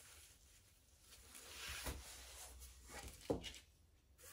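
Faint handling sounds: a soft hiss that swells and fades, and a few light clicks, the sharpest about three seconds in.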